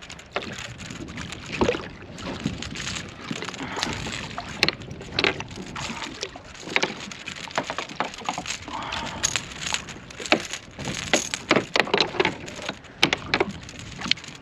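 Irregular water splashing and sharp knocks against a kayak's side as a big redfish thrashes at the surface while being landed.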